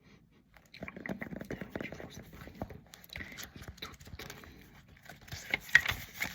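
A sheet of paper handled close to the microphone: irregular rustling and crackling, getting louder near the end.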